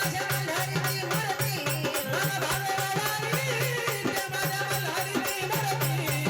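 Marathi devotional folk song: a wavering melody over a steady low drone, with a fast, even rattle-and-drum percussion beat throughout.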